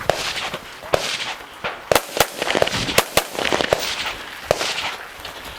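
Rifle shots, about one a second at an uneven pace, each a sharp crack with a short trailing hiss.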